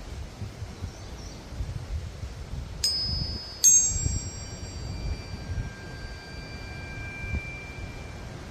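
A pair of chakra tuning forks tuned a perfect fifth apart (root and throat) struck with a mallet one after the other, about three seconds in: two bright metallic strikes less than a second apart, then a clear ringing that slowly fades over the next four seconds. A low rumble runs underneath throughout.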